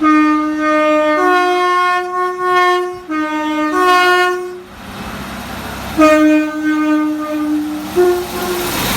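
Two-tone train horn sounded in a series of alternating low and high blasts, like a short tune. Partway through comes the running noise of the train, then a longer low blast and a short high one near the end.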